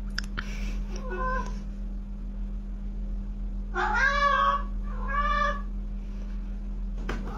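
A cat meowing three times: a short meow about a second in, a longer, louder one about four seconds in, and another short one just after.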